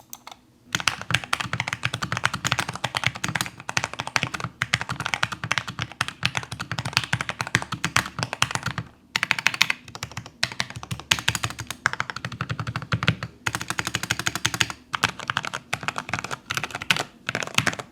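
Fast, continuous typing on a Keychron K6 mechanical keyboard in a keyboard sound test. The board has a tape mod, new keycaps, no O-rings and foam in the bottom of the case. The key clacks come in a dense run, with a couple of brief pauses.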